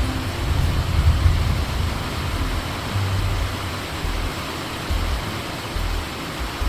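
Steady hiss of rain on a shed roof, with a deep, uneven rumble underneath.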